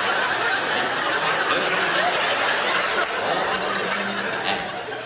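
Live theatre audience laughing in a sustained wave that slowly dies down toward the end.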